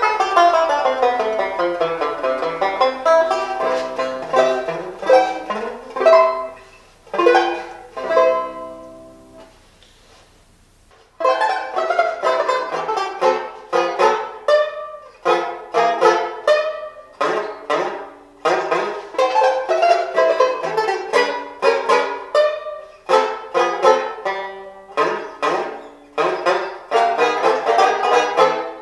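1917 Vega Tubaphone Deluxe tenor banjo playing a brisk tune in quick picked notes. About eight seconds in the notes ring out and die away to a brief hush, then the playing starts up again.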